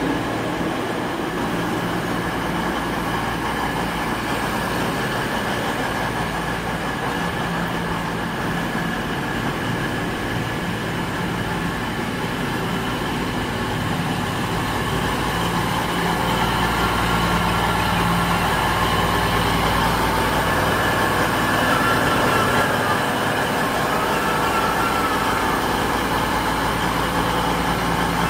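East Midlands Trains diesel train's engines running steadily as it moves slowly through the station, a continuous low drone that grows a little louder in the second half.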